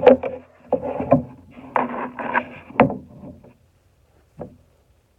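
VHS tape cases being handled and stacked: several sharp plastic knocks and clunks with rustling between them, then one faint knock near the end.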